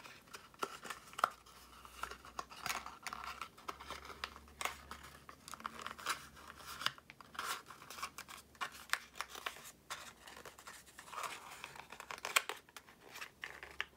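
Cardstock rustling and crinkling as the curved end flaps of a paper pillow box are bent in and pressed shut, with many short, irregular clicks and scrapes of paper against paper.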